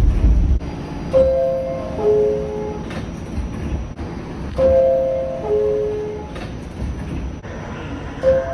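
R46 subway car door chime: a two-note descending ding-dong, sounding three times about three and a half seconds apart. Under it a low train rumble drops away about half a second in.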